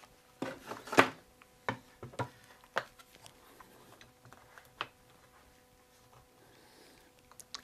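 Quick-Grip one-handed bar clamp being set on a glued wooden part: a string of short, sharp clicks and knocks as the clamp is placed and its trigger squeezed to close the jaws, thinning out after about five seconds with a couple more clicks near the end.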